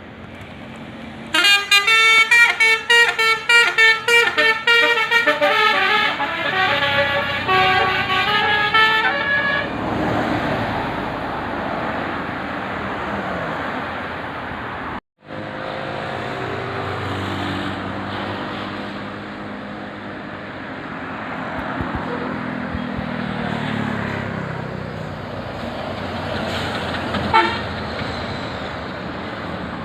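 Telolet 'basuri' multi-tone bus horn on a QQ Trans bus playing a fast, rhythmic melody of many short notes for about eight seconds, followed by bus engine and road noise. After a brief break, a bus engine runs with its pitch slowly rising and falling, and a short horn toot comes near the end.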